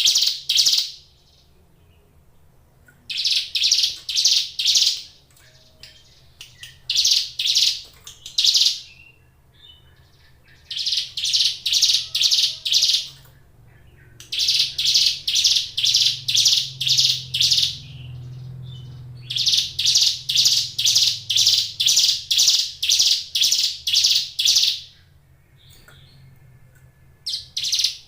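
Ciblek gunung, a mountain prinia, singing: phrases of sharp, high, rapidly repeated notes, each phrase a second to several seconds long, broken by short pauses.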